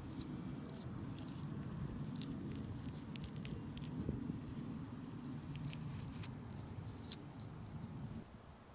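Gloved fingers scraping and pressing into loose, crumbly garden soil while planting red pearl onion bulbs, with small crackles and ticks of dirt and debris and a sharp click about seven seconds in.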